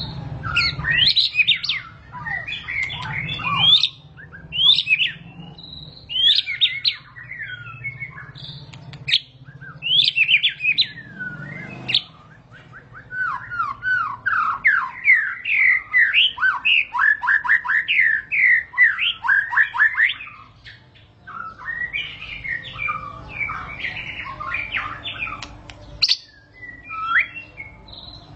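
White-rumped shama (murai batu) singing a long, varied song of clear whistled phrases. Through the middle it runs into a rapid series of repeated rising notes, the rolling 'ngerol' delivery.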